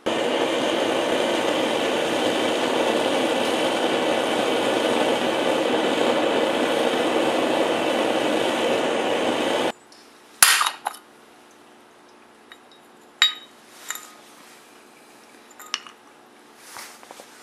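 Propane burner firing into a homemade coffee-can forge: a steady, loud rushing noise that cuts off abruptly after about ten seconds. Then a few scattered sharp clicks and taps of small metal objects being handled.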